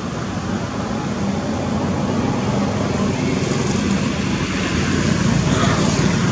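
Steady background traffic noise from motor vehicles, growing louder in the second half.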